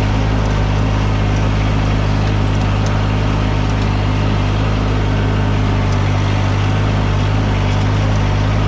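Engine of a small loader machine running steadily at an even speed as it drives along a trail.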